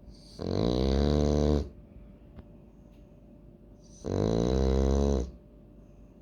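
French bulldog snoring: two long, loud snores, each lasting just over a second, about three and a half seconds apart.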